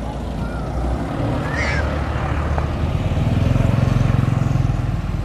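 Motor vehicle engine rumble from traffic on the road, swelling to its loudest about three to four seconds in as it passes and then easing off.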